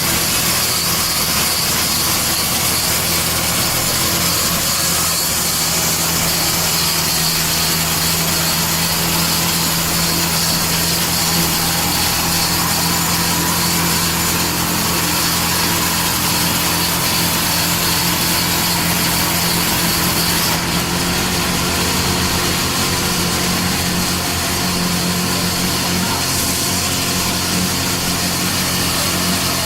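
Sawmill saw machinery running steadily with a continuous motor hum and hiss.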